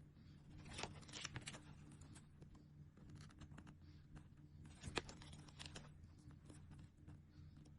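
Quiet handling of nail-sticker sheets and their packaging: scattered light rustles, crinkles and small taps, with one sharper tap about five seconds in, over a steady low hum.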